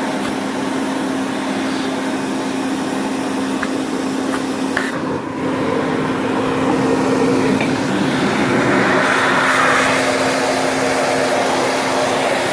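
1978 Hoover 427 vacuum cleaner running, its motor giving a steady hum under a rush of air. The rush grows louder about halfway through, with a few faint clicks.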